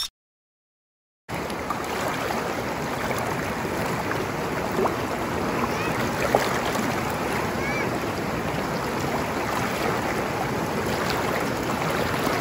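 River water rushing steadily, starting after about a second of silence.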